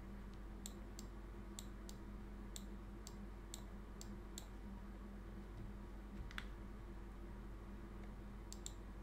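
Computer mouse clicking: about a dozen light, sharp clicks, most in the first few seconds, one more later on and a couple near the end. Under them runs a faint steady electrical hum.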